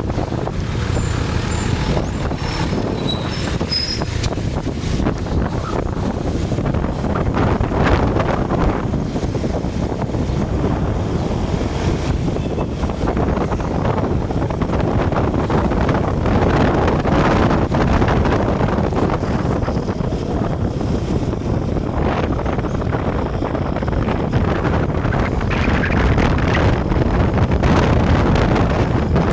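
Wind buffeting the microphone over the steady noise of road traffic, rising and falling every several seconds.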